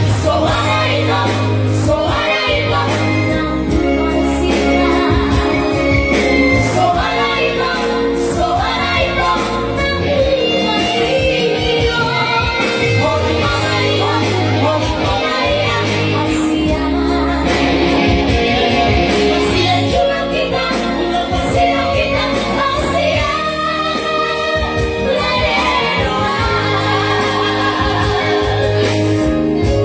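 A man singing a Batak song through a microphone, with a live amplified band of keyboard and guitar playing along.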